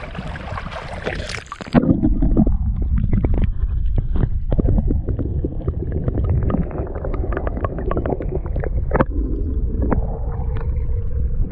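Wind and water noise at the lake edge, then about two seconds in the action camera dips under the water and the sound turns to a muffled low rumble with many sharp clicks and knocks, as a brown trout is held in the shallows and released.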